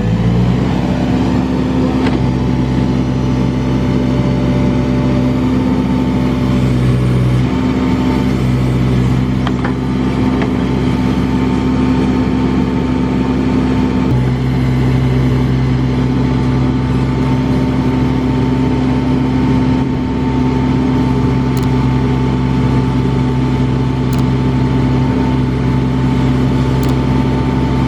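Diesel engine of a Case 580 Super N backhoe loader running at raised revs, a steady engine note that shifts slightly in pitch a few times.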